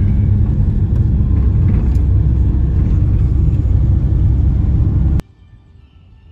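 Steady rumble of a passenger van driving on the road, heard from inside its cabin, cutting off suddenly about five seconds in.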